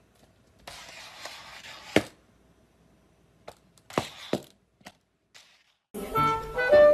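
A clear plastic container stuck on a pet's head knocking against a tiled floor and wall as the animal blunders about: a few sharp hollow knocks, the loudest about two seconds in and near four seconds, with a scraping rustle just before the first. Music starts near the end.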